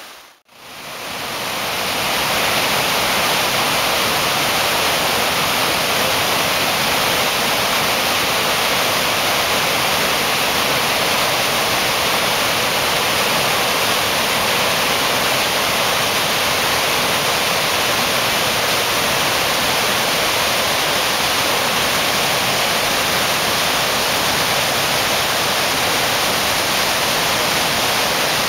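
Potomac River rapids at Great Falls in high water: whitewater pouring over and around rocks in a steady, loud rush. A brief drop-out just after the start, and a faint steady high tone underneath.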